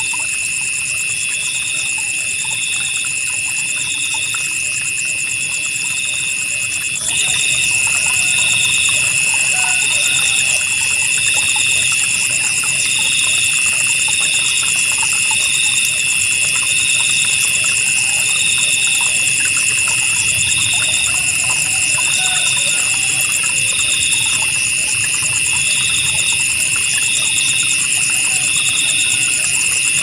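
A chorus of night insects, jangkrik crickets among them, calling together in steady high trills at several pitches, with one pulsing chirp repeating a little slower than once a second. A louder steady trill joins about seven seconds in.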